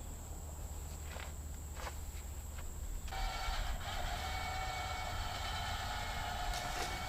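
A winch starts up about three seconds in and runs with a steady mechanical whine, taking up the cable to tighten it on the fallen tree. A few faint clicks come before it.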